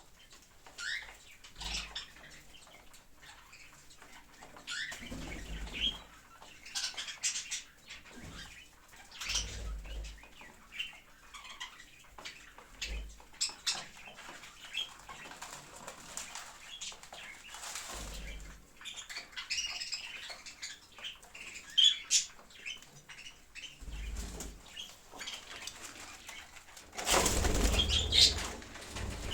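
Pet parrots chirping in short, scattered high notes, with several short bursts of wing flapping. A longer, louder flurry of flapping comes near the end.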